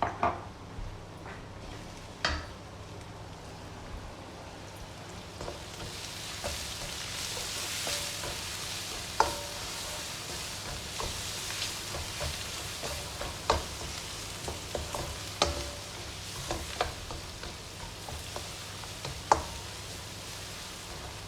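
Spices, garlic, ginger and green chilies frying in oil in a pan and being stirred with a spoon: a steady sizzle that grows louder about a quarter of the way in, with repeated sharp knocks and scrapes of the spoon against the pan.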